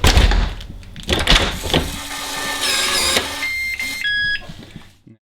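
Yale Conexis L1 smart lock responding as a tag is held to it: knocks and clicks of handling against the lock, then a short run of electronic beeps stepping through several pitches near the end.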